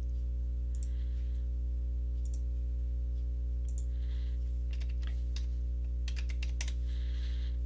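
Scattered computer mouse and keyboard clicks, a dozen or so spread unevenly, over a steady low electrical hum that is the loudest sound throughout.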